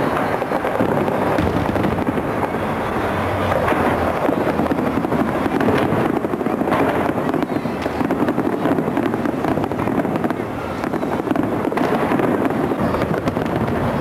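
Aerial fireworks shells bursting in a dense, continuous barrage of overlapping bangs and crackles.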